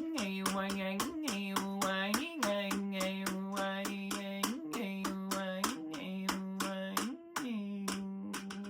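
A woman singing wordless held tones on one steady pitch, flicking briefly up and back about once a second, over a quick, steady tapping of hands on the side of a shruti box used as a drum.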